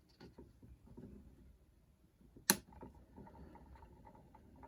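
Faint handling noises, then a single sharp click about halfway through, followed by a faint steady hum.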